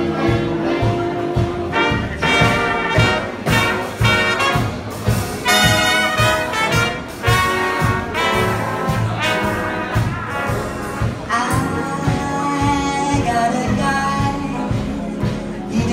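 Swing dance orchestra playing a brass-led instrumental passage: trumpets and trombones over piano, bass and drums, with a steady swing beat.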